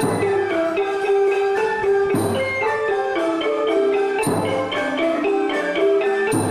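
Traditional Khmer folk dance music led by a xylophone-type mallet instrument playing a quick, running melody of short notes, with a heavier accented stroke about every two seconds.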